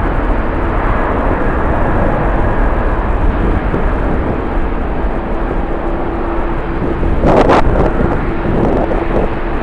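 Jet airliner engines running at the airport, a steady roar with a low hum that comes in about four seconds in, mixed with strong wind on the microphone. A brief loud rush cuts across it about seven and a half seconds in.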